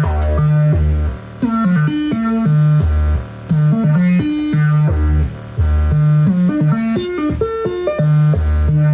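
Make Noise 0-Coast semi-modular synthesizer playing an arpeggiated pattern sent from a Midicake Arp: a repeating low bass figure with higher notes that step and glide in pitch over it.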